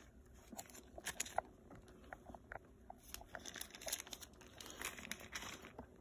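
Clear plastic zip-top bag crinkling as it is handled, a run of small irregular crackles and clicks.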